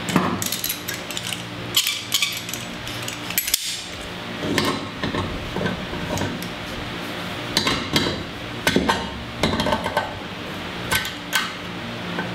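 Metal hand tools clinking and tapping against metal fittings in irregular bursts every second or two, as a hose-barb fitting and adapter are worked into an engine port. A steady low hum runs underneath.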